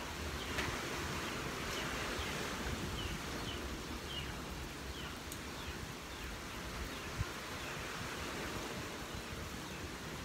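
Thick jackfruit and glutinous rice mixture simmering in a wide pan, bubbling over a steady background hiss. A run of short, falling high chirps, about two a second, sounds through the first half.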